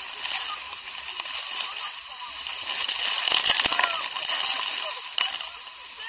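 Waterfall water rushing as a steady hiss, with splashing and sloshing that grows a little louder in the middle.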